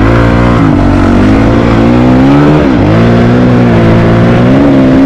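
Honda CRF450RL's single-cylinder four-stroke engine running under throttle on a gravel road. Its pitch dips briefly about a second in and again near the middle as the throttle is rolled off, then climbs back up.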